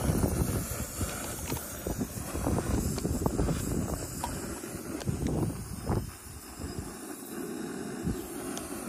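Gusty wind buffeting the microphone, with a few faint clicks and rustles of a freeze-dried meal pouch being handled.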